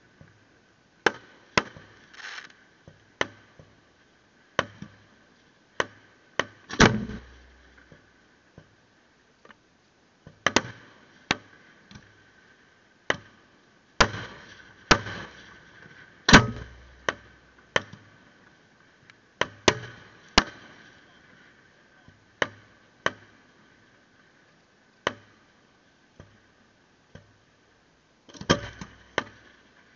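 Fireworks display: aerial shells bursting in an irregular string of sharp bangs, a few louder booms rumbling on afterwards, the loudest about halfway through.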